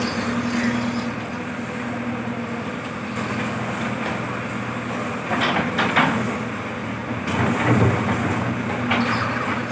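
JCB 3DX backhoe loader's diesel engine running steadily, with a few metallic clanks from the machine.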